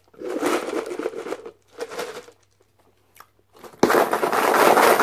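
Crinkling and rattling as a clear plastic bag and a drink cup are handled, in a few noisy bursts, with the loudest starting suddenly near the end.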